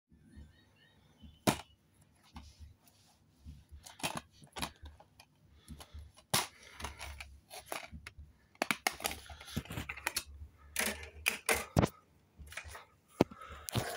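Handling noise from a plastic Blu-ray case: irregular sharp clicks, snaps and knocks with fumbling in between, the sharpest about a second and a half in and again near the end.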